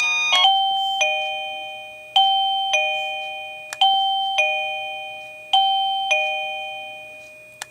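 Liztek wireless doorbell receiver playing its two-note ding-dong chime, a higher note then a lower one, repeated about four times in a row, each note ringing and fading away.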